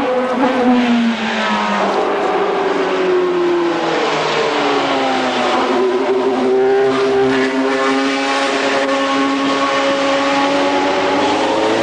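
Open-wheel formula race cars passing one after another through a corner, engines loud and overlapping. Revs drop over the first couple of seconds, then climb again as the cars accelerate away.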